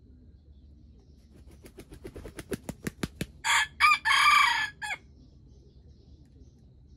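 A red junglefowl rooster flaps its wings in a quickening run of sharp claps, then crows once: a short call broken into a brief opening, a longer middle and a clipped final note.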